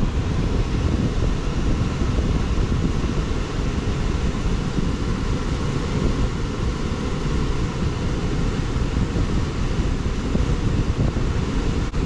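Air handler's blower fan running with a steady, loud rush of air and motor drone, started by jumping the thermostat's red wire to green (fan).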